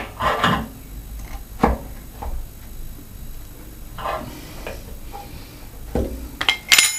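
Rad spanner and radiator wrench clicking and knocking against the brass union nut of a radiator valve as it is given its final tightening: a scattering of separate light metal clicks and knocks, with a brighter ringing clink near the end.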